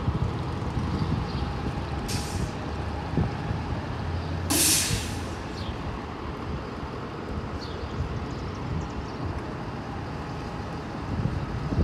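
Air brakes on a diesel city bus hissing twice, a short release about two seconds in and a louder, longer one about four and a half seconds in, over a steady low rumble of engines and traffic.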